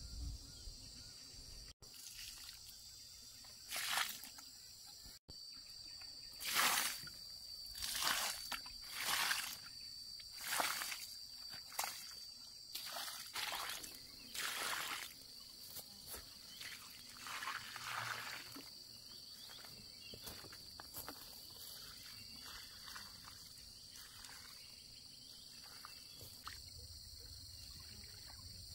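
Steady high-pitched drone of insects, with a series of about a dozen short swishing noises through the middle of the stretch.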